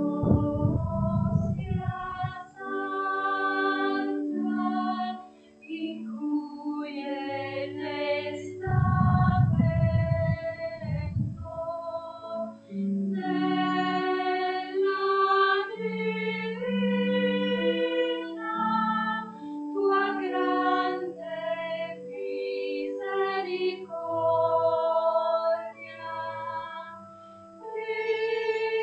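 A hymn sung by voices with organ accompaniment, in slow, held notes. A low rumble sounds near the start and again about nine seconds in.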